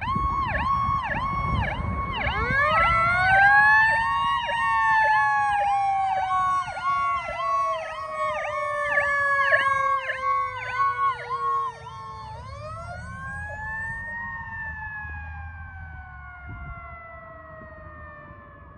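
Fire engine sirens on a 2021 Pierce Velocity pumper responding: a fast repeating yelp, joined a couple of seconds in by a second siren, the Powercall, that winds up and slides slowly down. The yelp stops about twelve seconds in as the second siren winds up again and coasts down, fading as the truck drives away, with engine rumble underneath.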